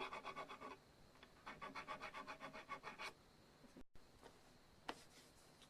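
Ultrafine fret file rubbing back and forth over the sharp fret ends of a bass guitar neck, in quick even strokes of about nine a second, in two runs; after a pause, two faint clicks.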